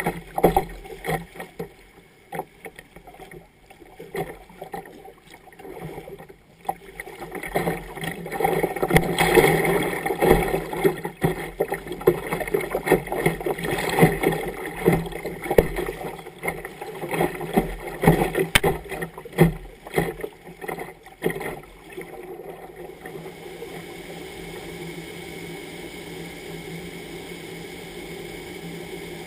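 River water splashing and slapping against a kayak's bow while it runs a riffle, with many irregular knocks, heaviest in the middle stretch. About 23 seconds in it gives way to a steady rush of water pouring over a diversion weir.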